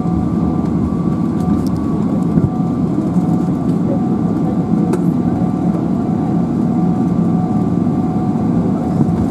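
Cabin noise inside a Boeing 777-300ER moving on the ground: its GE90-115B engines run steadily, a deep rumble with two steady whining tones over it.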